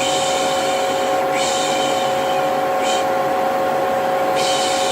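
Vacuum cleaner motor running with a steady hum, overlaid with repeated long 'shhh' shushes, the soothing 'piş piş' hush used to calm a baby. The shushes are each about a second long, with a longer gap past the middle.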